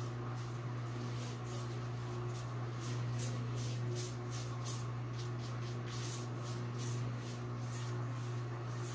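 Dixie Belle mini paintbrush swishing back and forth through wet chalk paint on a wooden dresser top, about two or three soft strokes a second. A steady low hum runs underneath.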